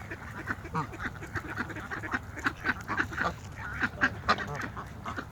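A flock of ducks quacking, with some honking, in many short overlapping calls.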